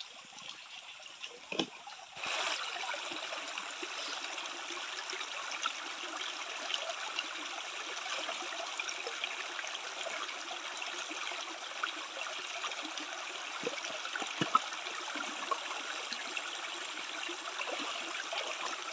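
Shallow stream running over rocks: a steady rush of water that comes in abruptly about two seconds in, with a few faint knocks.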